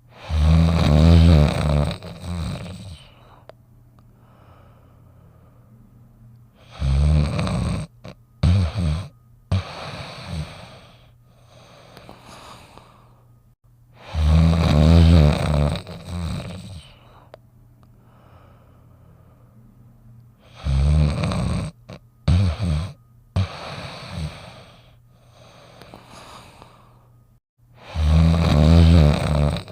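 Snoopy's cartoon snoring: a long, loud snore about every seven seconds. Every other snore trails off into a few short snorts, and the sequence repeats.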